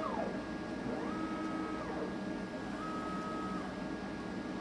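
Stepper motors driven by a microstepping controller, jogged one axis at a time. Each move is a whine that rises in pitch as the motor accelerates, holds steady for under a second, then falls as it decelerates to a stop. This happens twice in full, about a second and three seconds in, with the tail of one move at the start and the next beginning at the end.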